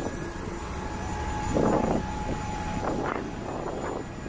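Aircraft noise across an airfield ramp: a low steady rumble with a thin steady whine that stops about two seconds in. A short louder rush comes about one and a half seconds in, and a smaller one near three seconds.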